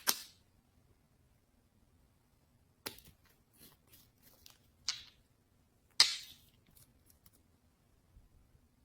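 Slime being pressed and stretched by hand, giving short sticky pops and crackles: one right at the start, a run of small ones a few seconds in, and the loudest pop about six seconds in.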